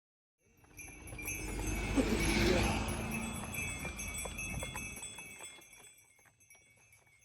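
Horse-drawn carriage passing, its harness bells ringing over a low rumble that swells about two seconds in and fades away by about six seconds, leaving the bells jingling in a steady rhythm.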